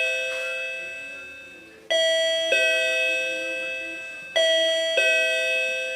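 Token number calling machine sounding its ding-dong chime: a higher note followed by a lower one, each ringing out and fading. The two-note call sounds twice, about 2 s and 4.4 s in.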